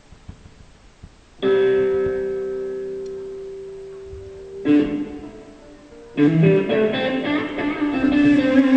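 Amplified band instruments being tried out at a sound check. A chord is struck about a second and a half in and left to ring and fade, a second chord follows about three seconds later, and then fuller playing starts.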